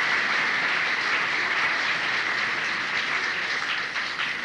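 Audience applauding, a dense steady clapping that begins to die down near the end, heard on an old cassette tape recording.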